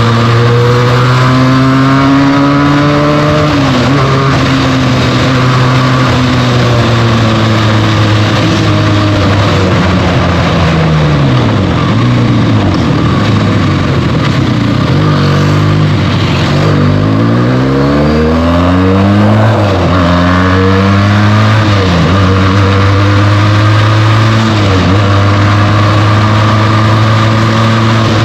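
Benelli TNT 300's parallel-twin engine on its stock exhaust, riding and accelerating through the gears. The revs climb and drop back at each shift. Around the middle it slows right down, then pulls up through the gears again.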